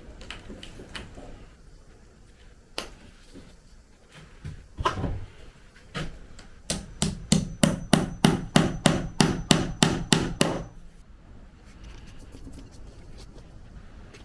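A hammer striking, with a few scattered knocks and then a quick, even run of about fifteen blows at roughly four a second, ending abruptly.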